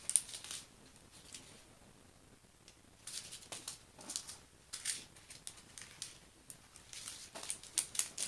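Small plastic bags of diamond-painting drills being handled: irregular bursts of crinkling plastic and light clicks, with a lull of about two seconds near the start.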